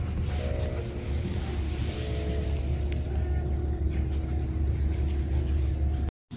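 Steady low rumble of a moving vehicle, with faint steady tones above it, broken by a brief dropout near the end.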